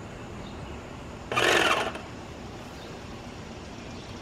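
Graco Magnum X7 airless paint sprayer running steadily, with one short, loud hiss from the spray gun about a second in as the clogged tip spits.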